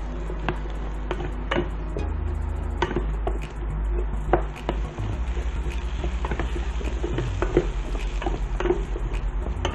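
Wooden spatula stirring cubed pumpkin and carrot in a stainless steel pan, with irregular scrapes and knocks against the pan, over a steady low hum.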